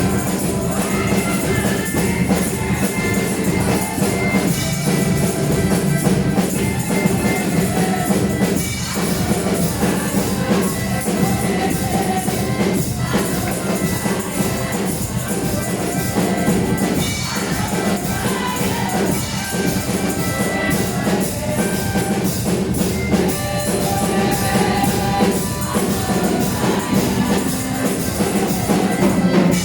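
Praise music with tambourine and drums, playing continuously.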